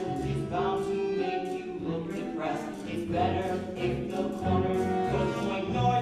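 Musical-theatre show-tune accompaniment playing, pitched instruments over a steady beat.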